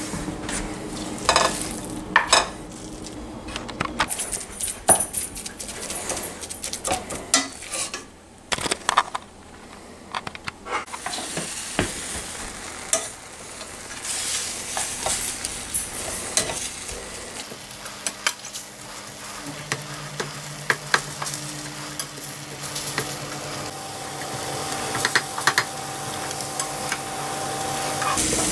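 Ground venison sizzling in a stainless steel skillet on a gas stove while a plastic spatula stirs and scrapes it, with repeated clicks of the spatula against the pan. A low steady hum comes in about two-thirds of the way through.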